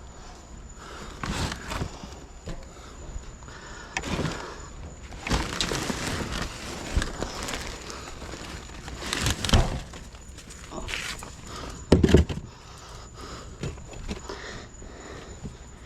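Scrap being handled and rummaged through: irregular knocks, scrapes and thuds, with one heavy thud about twelve seconds in.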